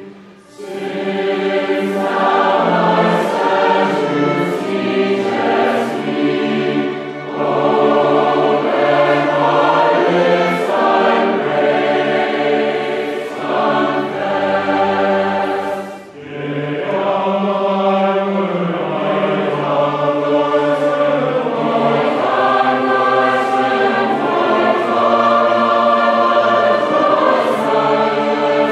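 A choir singing a hymn in long sung phrases, with a brief break about sixteen seconds in.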